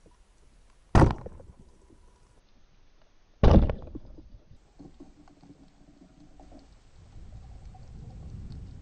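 Two speargun shots underwater, about two and a half seconds apart, each a sharp loud crack with a brief ringing tail, then a low rumble of underwater movement.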